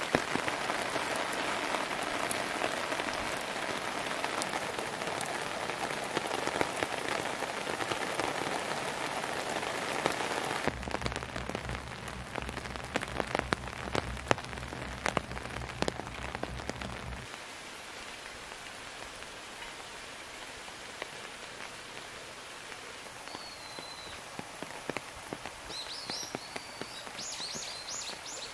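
Heavy rain pattering on a wet wooden deck, with many sharp individual drops hitting close by. Partway through it changes to softer rain, with a low steady rumble for several seconds. Near the end a small bird gives a few quick high chirps over the rain.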